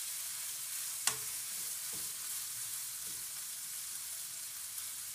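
Sausage, onions and bell peppers sizzling in rendered bacon fat in a nonstick skillet, stirred with a spatula: a steady high hiss, with a sharp click of the spatula against the pan about a second in and softer strokes near two and three seconds.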